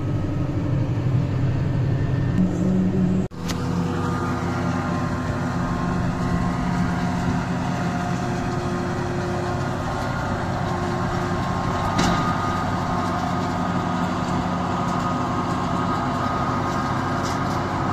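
Claas tractor engine and the PTO-driven Özen İş Kobra forage harvester it pulls, running steadily while chopping dry grass and blowing it into a trailer. The sound breaks off briefly about three seconds in, then the steady drone carries on, with one short click about twelve seconds in.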